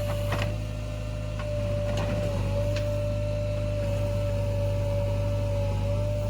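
JCB 3DX backhoe loader running steadily: a low engine drone with a steady high whine over it, and a few light clicks in the first three seconds.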